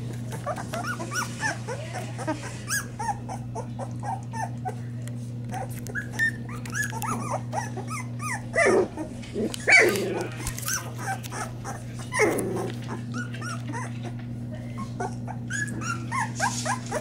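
Springer spaniel puppies whimpering and squeaking: many short, high whines overlapping one another, with a few louder cries around the middle. A steady low hum runs underneath.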